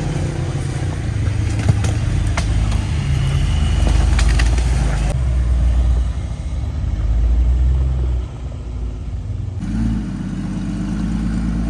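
Jeep engine running at low revs as it crawls over a rocky trail, with a few short knocks and crunches of rock in the first few seconds. The sound changes abruptly twice.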